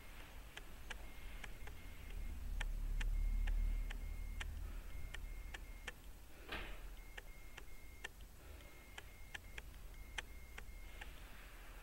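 Faint ticking, two to three uneven clicks a second, with short stretches of a thin steady high tone between the clicks, over a low hum that swells about three seconds in.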